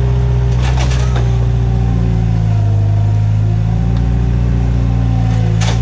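Bobcat 743B skid-steer loader's engine running as it works a grapple, the engine note rising about two seconds in and easing back later. Short sharp knocks come about a second in and again at the end.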